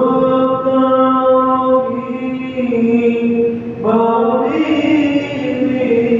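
Islamic pujian chanted in Arabic. The voice holds long, ornamented notes, and a new phrase begins a little before the four-second mark.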